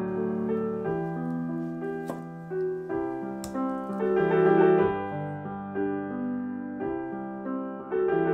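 Background piano music, a slow melody of held notes. Two brief clicks sound about two and three and a half seconds in.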